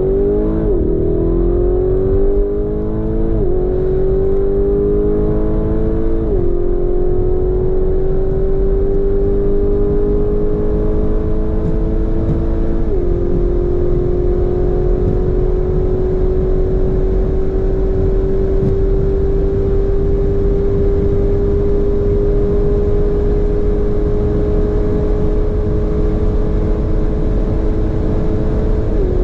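Tuned Lamborghini Urus's twin-turbo 4.0 V8 with a Novitec exhaust under hard acceleration, heard from inside the cabin. The engine note climbs steadily, and drops sharply at quick upshifts about three, six and thirteen seconds in. Then comes a long, slow climb in sixth gear past 300 km/h, and one more shift near the end.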